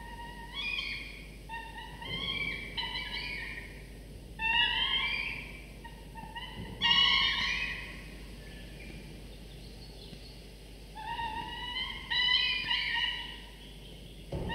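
Peregrine falcon nestlings giving food-begging calls: runs of whining, slightly rising call notes, several in quick succession, with a quieter pause of a few seconds in the middle.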